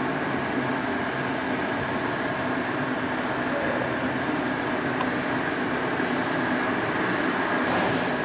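Steady machine hum and hiss of repair-shop background noise, with a brief faint clatter near the end.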